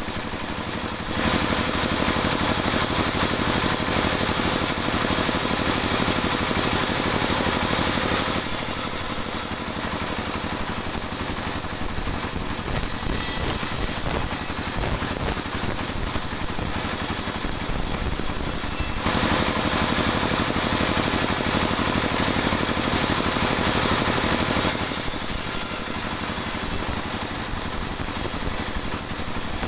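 Sawmill band saw running and ripping a dry teak board, a steady loud machine noise that turns brighter and harsher for two stretches of several seconds.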